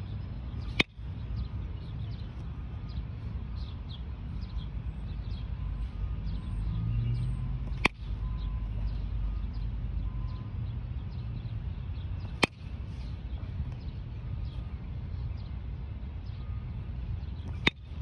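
Baseball bat striking pitched balls: four sharp cracks, roughly every five seconds.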